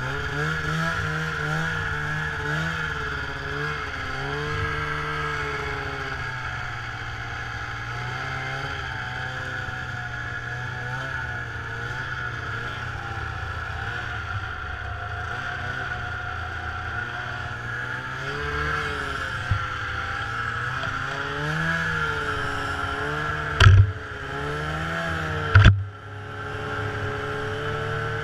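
Snowmobile engine running while riding, its pitch rising and falling with the throttle. Two sharp thumps about two seconds apart near the end.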